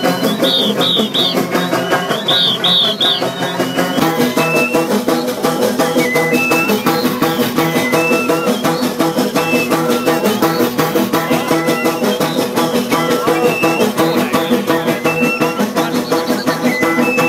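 Live Sani folk-dance music: drums and other instruments playing with a fast, even beat that grows denser about four seconds in.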